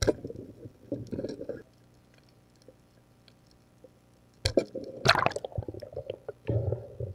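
Muffled underwater water sounds and knocks as picked up by a diver's camera during a night dive. They come in two bursts, one at the start and one from about four and a half seconds in, with a quiet stretch between.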